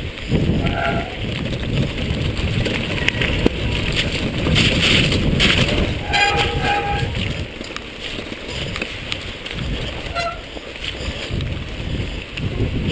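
Mountain bike rattling and rumbling down a wet, rocky gravel trail, with wind buffeting the helmet or bar-mounted action camera. Short squeals from the bike's wet brakes come in about a second in, again for about a second around six seconds in, and briefly near ten seconds; the squeal is typical of wet disc brakes.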